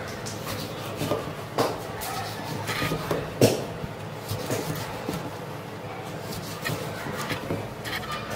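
Kitchen knife slicing a lemon on a plastic cutting board: irregular knocks of the blade striking the board, the loudest about three and a half seconds in, over a low steady hum.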